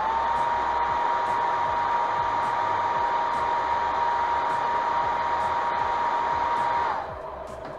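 Airbrush spraying on compressed air: a steady rush of air with a thin whistle that rises slightly as the trigger opens, cutting off after about seven seconds.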